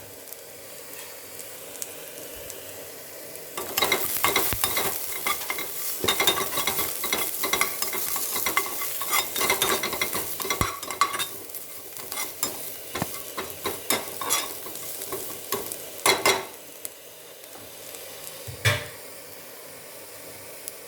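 Food frying in hot oil in a pan: a steady sizzle, joined about four seconds in by a spoon stirring and scraping the pan amid crackling. It quietens after about sixteen seconds, with one more scrape near the end.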